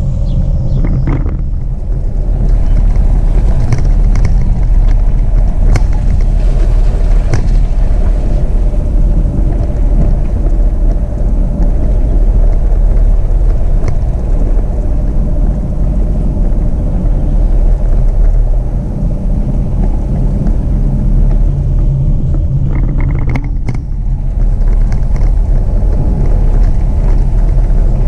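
Jeep Renegade driving on a dirt road: a loud, steady rumble of tyres and engine, with a few short sharp clicks scattered through it.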